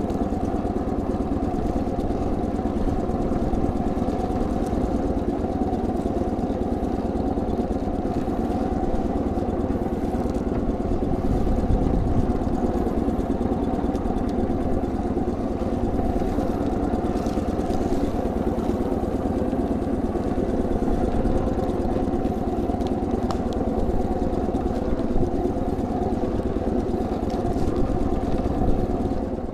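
A small fishing boat's engine running steadily at low speed, with no change in pitch.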